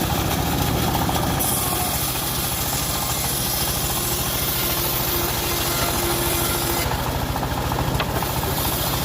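Engine of a homemade portable bandsaw mill running steadily with an even, rapid beat, the blade sawing an old teak log; a high hiss comes in about a second and a half in and eases off near the end.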